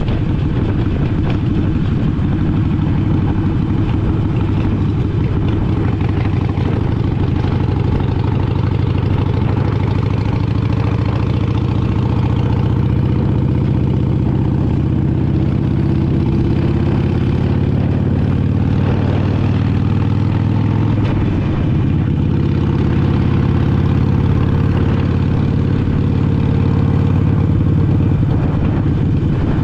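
Harley-Davidson Sportster Iron 883's air-cooled V-twin running steadily under way as the bike cruises, its note shifting slightly about two-thirds of the way through.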